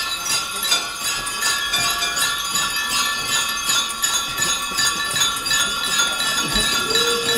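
Chimes ringing: many overlapping high, bell-like tones struck over and over. Rising pitched tones come in near the end.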